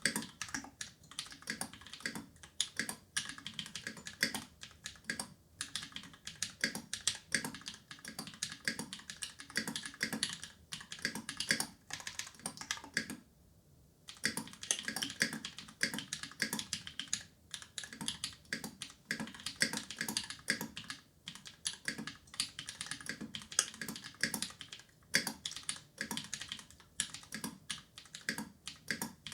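Continuous fast typing on a Pizza65 mechanical keyboard with an aluminium plate, Glorious Panda tactile switches lubed with Krytox 205g0 and lubed Durock screw-in stabilisers, a steady stream of keystroke clacks with a short pause about halfway through.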